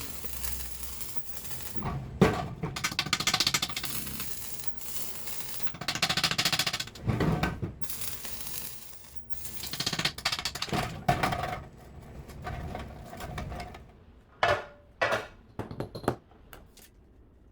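Steel tool cart being assembled: metal parts clattering and rattling, with runs of rapid mechanical clicking and a few sharp metal knocks near the end.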